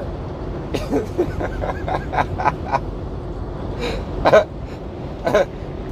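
A man's short non-word vocal sounds, with a quick run of them about two seconds in and a couple more near the end, over a steady low background rumble.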